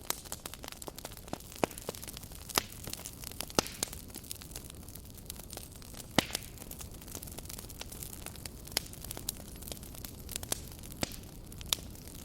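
Campfire burning: a steady low rush of flame with irregular sharp pops and crackles of burning wood, a few louder snaps among them.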